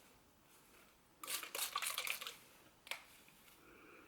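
Hand-held plastic spray bottle squirting water onto a wig: a quick run of short hissing squirts about a second in, then one more just before three seconds.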